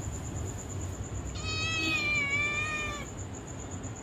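A young kitten meowing once: one drawn-out, high meow lasting about a second and a half, starting about a second and a half in.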